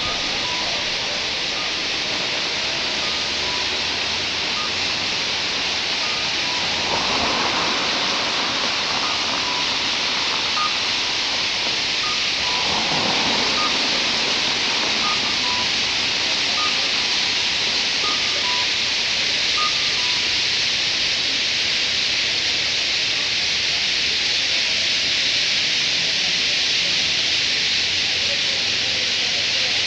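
A large flock of white-cheeked starlings calling all at once, a dense, steady, hiss-like din. Faint short beeps repeat at two alternating pitches, with two brief swells of lower sound near 7 and 13 seconds in.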